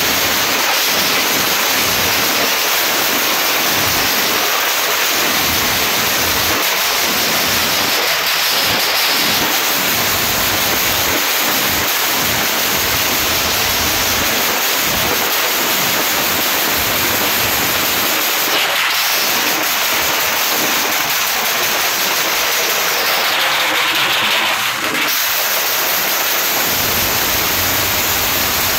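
Motorcycle engines revving hard together: a loud, steady, noisy blare.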